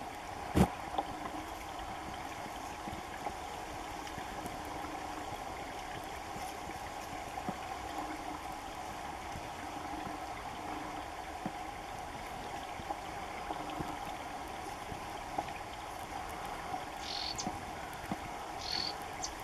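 Steady trickling and lapping of water at a reed-fringed shoreline. A single sharp click comes about half a second in, and two short high chirps come near the end.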